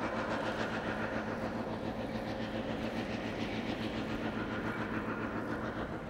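New Holland TX68 combine harvester running steadily while harvesting wheat: a constant mechanical drone with a fast, even clatter of its machinery.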